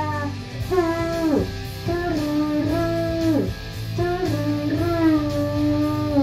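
A boy singing into a microphone over a backing track with guitar. He holds long notes and slides down in pitch at the end of phrases, about a second and a half in and again about three and a half seconds in.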